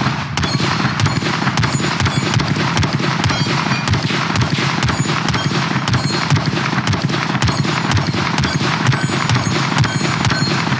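Diamondback DB15 5.56 semi-automatic rifle firing a long string of rapid shots, about three a second.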